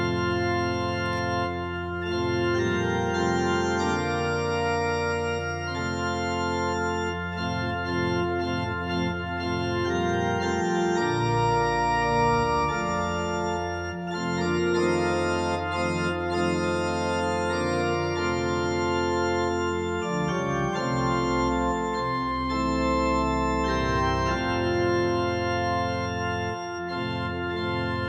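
Organ music playing slow, held chords over a deep bass line, marking the close of a church service.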